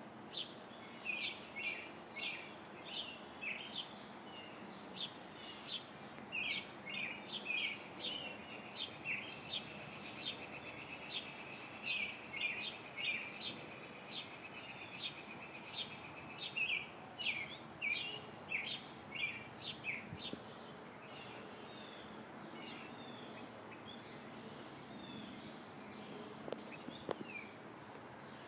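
Wild birds calling: a long run of sharp, high chirps, each sweeping downward, one or two a second, with a steady high trill lasting several seconds in the middle. The calls thin out to a few faint ones for the last several seconds.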